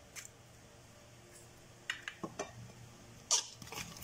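Scattered light clicks and taps of kitchen handling, then a sharper clink and a few smaller ones a little after three seconds in as a metal spoon knocks against a small bowl of chopped vegetables and egg.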